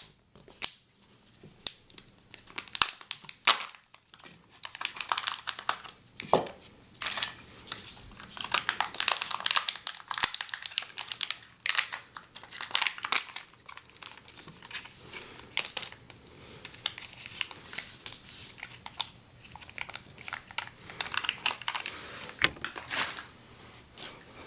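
Foil wrapper of a Kinder Surprise chocolate egg being peeled off and crinkled by hand: irregular crackling and rustling with sharp clicks, coming in bunches.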